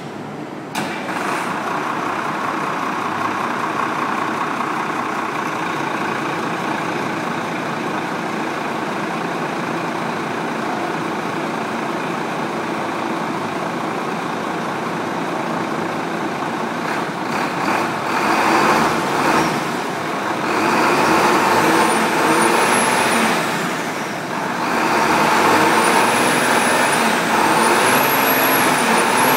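Cummins diesel engine of a 1997 Gillig Phantom transit bus catching under a second in and then running steadily, its speed rising in surges in the last third with a high whistle rising and falling. The owner suspects a blown head gasket; the smoke is too white.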